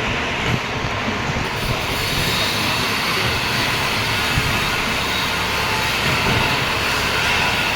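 Heavy-duty lathe running, a steady, unbroken machine noise with a low hum.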